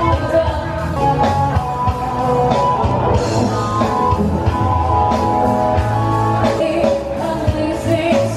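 Music: a song with singing over guitar and a steady drum beat.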